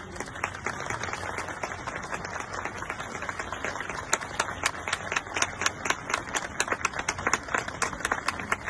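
Crowd applauding, the clapping starting as a dense patter and turning into sharper, more distinct claps from about three seconds in.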